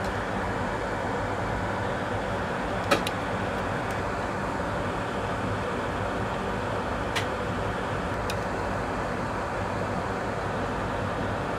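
Steady fan-type hum and hiss, with three faint ticks spread through it.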